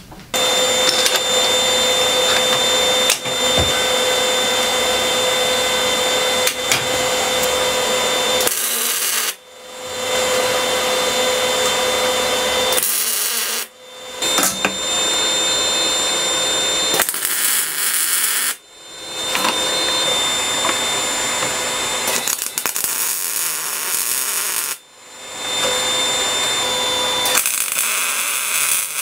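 MIG welder laying weld beads on steel: a steady welding noise, broken off by four short pauses between runs.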